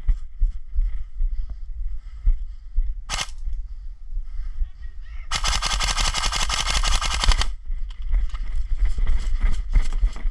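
An airsoft gun firing a full-auto burst of about two seconds past the middle, with one short sharp burst a few seconds in. Regular low thuds of footsteps run underneath.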